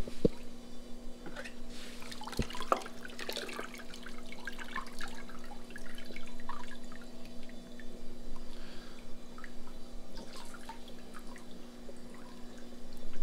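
Water splashing and dripping in an aquarium sump as a pump is handled in and out of the water, with a sharp knock at the start and another about two seconds in. A steady hum runs underneath.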